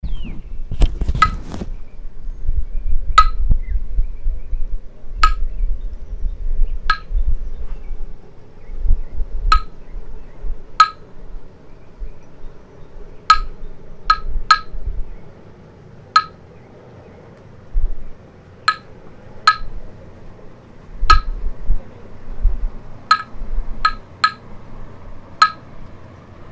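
Short, ringing clinks, each at the same bright pitch, repeating at irregular intervals about one to two seconds apart, over a low rumble that fades about halfway through.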